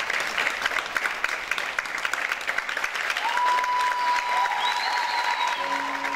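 Audience applauding. A steady high tone joins the clapping about halfway through, and piano notes begin near the end.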